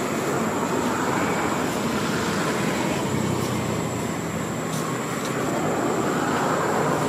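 Steady rumble of a motor vehicle engine running, slowly growing louder, with a thin steady high tone over it.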